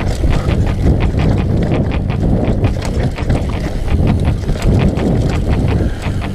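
Enduro mountain bike descending a dirt trail: a fast, irregular clatter of chain and frame rattling as the tyres run over bumps, over a low wind rumble on the microphone.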